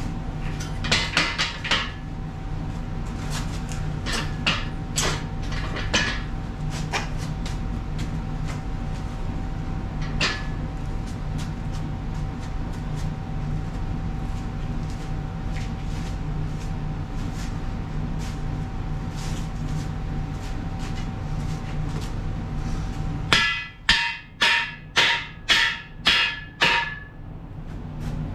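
Steel engine hoist legs knocking and clanking against the frame and floor as they are handled and fitted, over a steady hum. Near the end comes a run of about seven hammer blows on steel, roughly two a second, each ringing briefly.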